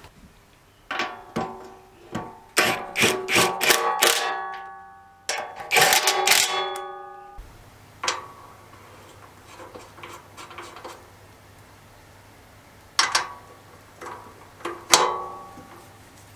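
Metal parts and tools clinking and striking against each other, each hit ringing on briefly: a quick run of strikes over the first several seconds, then a few single clinks near the end.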